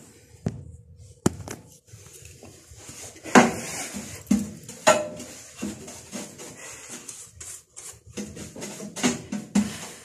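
Irregular knocks and clatter of handling: a phone camera being moved and set down, and hands and a tool working on an opened microwave oven's casing. The loudest knocks come about three and a half and five seconds in.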